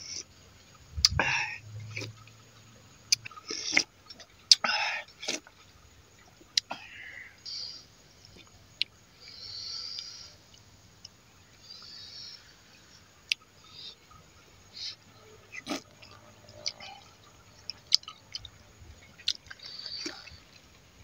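A man slurping hot fish tom yum soup from a metal spoon and chewing, in short irregular slurps. Sharp clicks of the spoon against the bowl and plate are scattered throughout.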